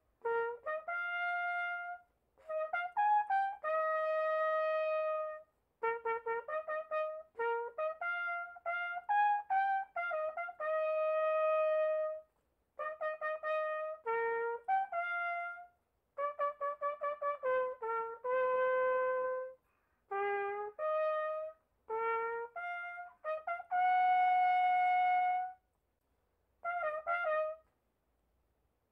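Background music: a single melody line in phrases of quick short notes, each phrase ending on a long held note, with short gaps between phrases.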